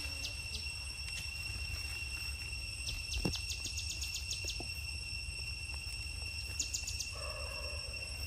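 Evening insect chorus: a steady high-pitched drone of crickets, with rapid chirping trills that come and go, over a low background hum. A single sharp click about three seconds in.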